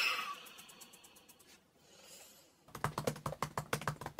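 Fast typing on a laptop keyboard, a quick run of key clicks starting about two and a half seconds in, after a brief noise at the very start and a few faint ticks.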